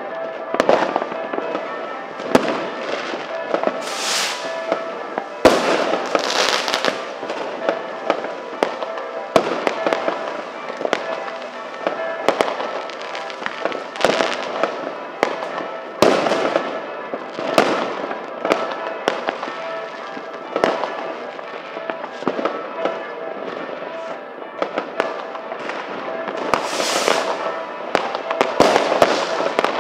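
Many fireworks and firecrackers going off at once: a dense, continuous crackle with frequent sharp bangs and a few louder hissing bursts.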